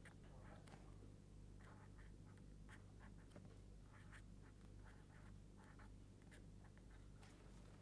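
Faint, irregular scratching and tapping of handwriting as an equation is written out by hand, with short strokes coming unevenly, over a low steady hum of room tone.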